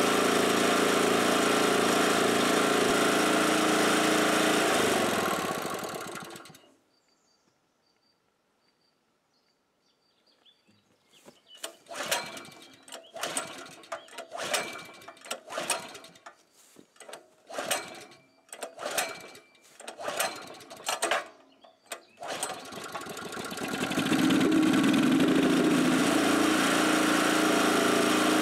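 Portable generator's small gasoline engine, running with a valve adapter in place of its air filter, runs steadily and then dies away about five seconds in. After a few seconds of quiet it is pull-started with its recoil starter, about ten quick pulls each spinning it briefly, and it catches and runs steadily again in the last few seconds.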